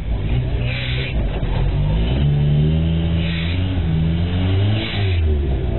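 Lifted 4x4 pickup truck's engine revving up and down under load as it crawls up a rock pile. Three short bursts of hiss sound over it.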